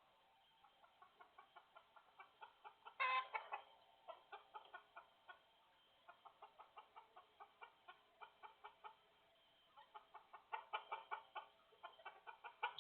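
Chickens clucking in quick runs of short notes, with one louder, harsher call about three seconds in.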